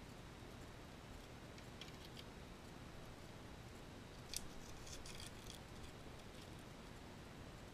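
Faint handling of a new watch mainspring's foil-and-paper packet: a few light clicks, then a sharp click about four seconds in, followed by a second of crisp crinkling.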